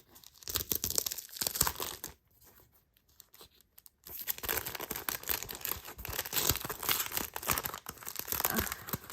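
Packaging being torn and crinkled open by hand. It comes in two spells: one at the start, then a longer, steady one from about four seconds in.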